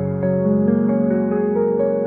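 Background music: soft, slow electric-piano melody over sustained chords.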